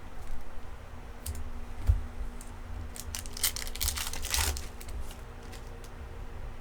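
Foil baseball card pack being torn open and crinkled, with a few light clicks and then a tearing rip of about a second past the middle.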